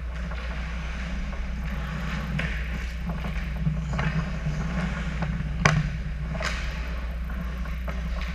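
Ice hockey play at the net: skate blades scraping the ice and sticks and puck clacking in a scramble in front of the goal, with several sharp cracks, the loudest a little past the middle. A steady low hum sits under it all.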